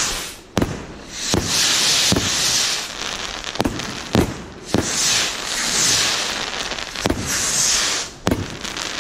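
Consumer firework barrage cake firing: about seven sharp bangs at uneven intervals, with long spells of high hiss between them.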